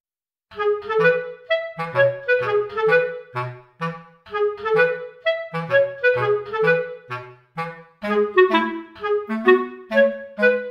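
Background music: a bouncy melody of short pitched notes over a bass line, starting about half a second in.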